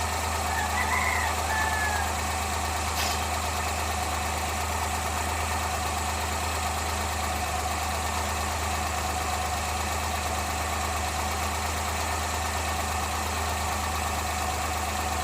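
Suzuki F6A three-cylinder engine idling steadily, with its PCV valve set only slightly open.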